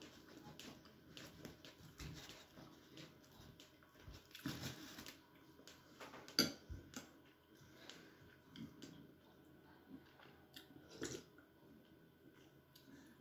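Quiet eating sounds: chewing and small mouth noises, with soft clicks and rustles as sticky rice is taken from a woven bamboo basket and rolled by hand. A sharper click about six seconds in.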